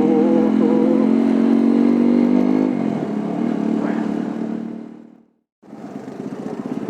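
Single-cylinder TVS Apache motorcycle engine running steadily, then dropping in pitch as it slows about three seconds in and fading away. The sound cuts out completely for a moment, then the engine comes back at low revs with a quick pulsing beat.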